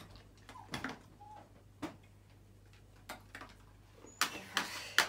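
Scattered light clicks and taps, then a louder run of knocks and rattles about four seconds in as a shallow plastic tray is set down on a rubber-backed mat beside a springer spaniel. A short, faint dog whimper comes near the start.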